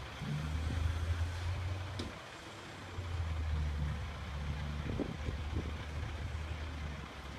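Cement mixer truck's diesel engine running with a steady low drone that weakens for about a second a couple of seconds in, and again near the end.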